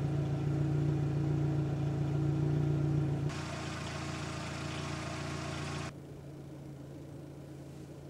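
Car engine running steadily at a low, even pitch. The sound changes abruptly twice, at hard edits: about three seconds in it turns hissier and brighter, and near six seconds it drops to a quieter steady hum.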